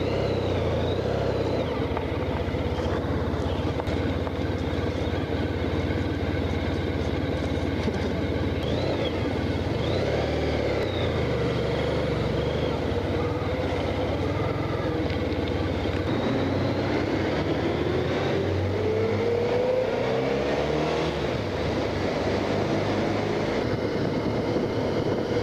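Honda Crosstourer's V4 engine running at low road speed, its pitch rising as it accelerates about two-thirds of the way through.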